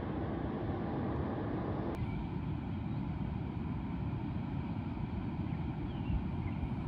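Wind buffeting the microphone: a steady, fluttering low rumble. It abruptly turns deeper about two seconds in.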